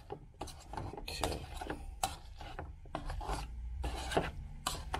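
Wire potato masher mashing boiled potatoes with onion and butter in a stainless steel pot. The strokes come irregularly, about two or three a second, with the masher squishing the potatoes and rasping against the pot's bottom.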